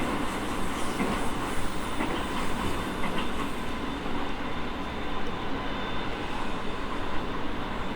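E217 series electric train running, heard from inside a passenger car: a steady rumble of wheels on rail with faint clicks from the track joints and a thin steady whine.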